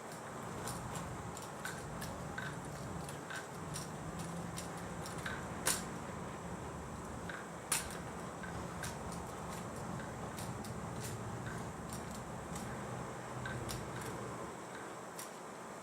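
Drill rifle being spun and caught in the hands: light taps and clicks of the rifle against the palms about once a second, with two sharper smacks about six and eight seconds in, over a steady room hum.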